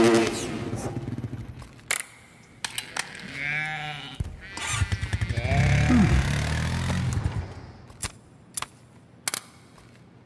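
Small off-road vehicle engine revving in two bursts, its pitch swooping up and down, with sharp clicks and taps between and a few more near the end.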